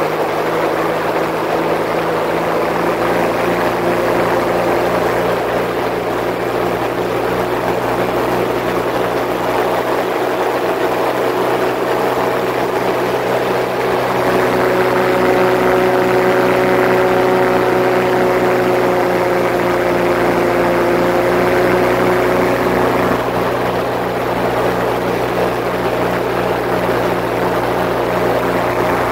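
Small propeller aircraft's engine running steadily in flight, heard from on board over wind rush. The engine note lifts slightly about halfway through.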